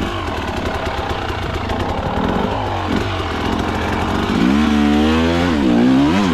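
KTM two-stroke hard enduro dirt bike engine lugging at low revs. From about four seconds in it revs up and down several times.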